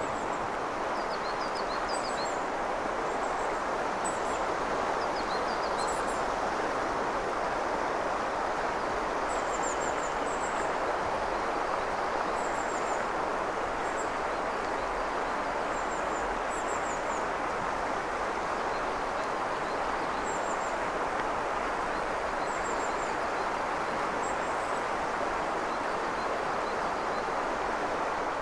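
Steady rush of a clear mountain river flowing over stones, with small birds giving short, high-pitched chirps every few seconds.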